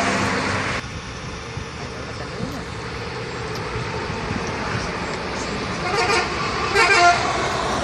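Highway traffic noise from passing vehicles. A loud sound stops abruptly under a second in, and two short, pulsing bursts of a bus's multi-tone 'telolet' horn sound about six and seven seconds in.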